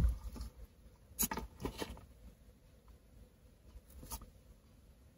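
Faint handling sounds of a Louis Vuitton Mini Pochette and its gold chain strap: a soft bump at the start, then a few light clicks of the metal chain and canvas, three a little after a second in and one more about four seconds in.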